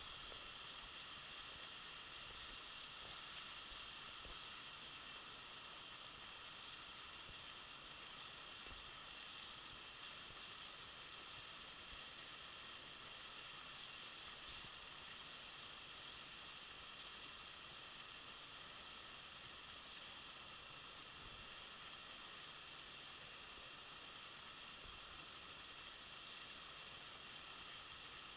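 Waterfall rushing over rocks: a faint, steady hiss that does not change.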